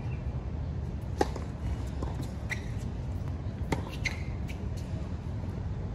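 Tennis rally on a hard court: a few sharp pops of racket strings striking the ball and the ball bouncing, the loudest about a second in and two more close together near the end, over a steady low background rumble.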